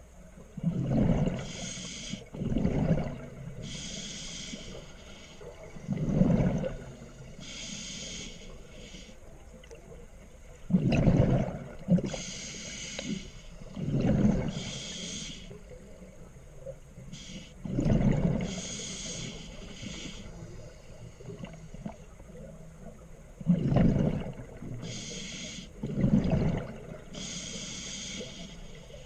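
Scuba diver breathing through a regulator underwater, about eight breaths: each a hiss of inhaled air through the regulator and a low rush of exhaled bubbles, one breath every three to four seconds.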